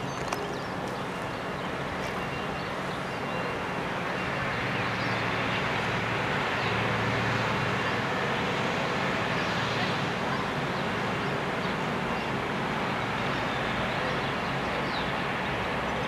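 Diesel engine of a ÖBB class 5047 railcar running at standstill, a steady hum that swells somewhat a few seconds in. A few birds chirp faintly.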